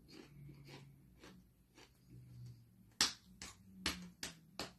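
A person chewing a mouthful of caramel- and chocolate-coated popcorn: a series of short, crisp crunches, faint at first and more distinct from about three seconds in.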